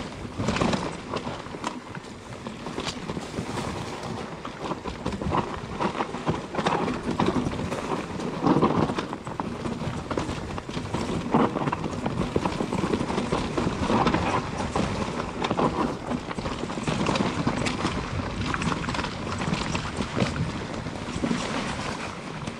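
Mountain bike riding down a rough trail: tyres rolling over dirt, roots and rocks, with the bike rattling and knocking over the bumps in a dense, irregular clatter.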